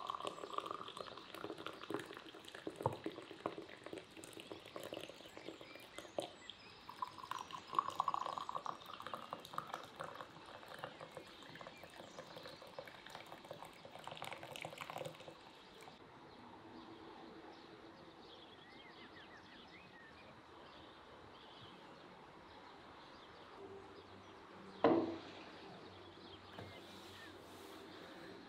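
Black tea poured from a glass teapot into two glass Turkish tea glasses: a splashing, gurgling stream fills one glass and then the other, for about fifteen seconds. It is followed by a quiet stretch and a single sharp knock near the end.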